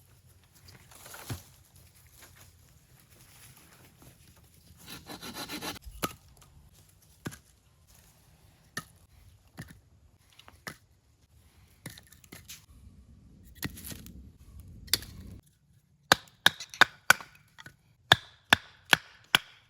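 Small dry firewood being cut up by hand: short bursts of rasping saw-like strokes and scattered cracks of wood, then near the end a quick run of loud, sharp chopping strikes about two to three a second.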